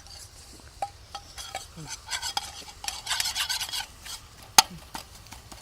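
A spoon stirring and scraping a pan of ginger cooking down in jaggery, with scattered clicks and one sharper knock about four and a half seconds in.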